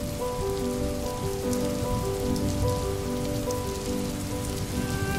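Steady rain ambience, with soft music of slow, held notes coming in just after the start.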